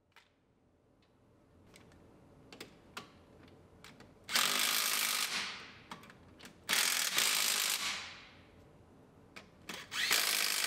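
Cordless electric ratchet running three times, about a second and a half each, driving the wheel hub bearing's mounting bolts into the steering knuckle, with a few light metal clicks in between.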